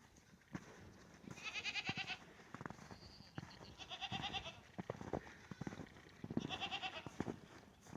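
Goats bleating three times, each call about half a second to a second long with a quavering, wavering tone.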